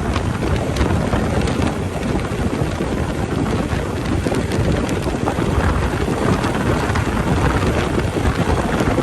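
Motorcycle riding on a gravel road, with a steady loud rush of wind on the microphone mixed with the dense crackle of tyres over loose stones.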